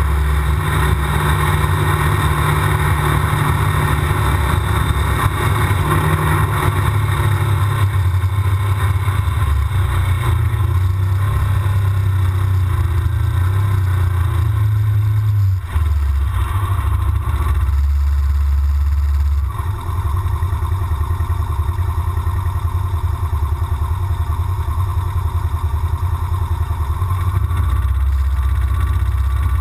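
Side-by-side UTV's engine running under way, heard from inside the open cab. The engine note dips briefly about halfway through and again a few seconds later, then carries on steadily.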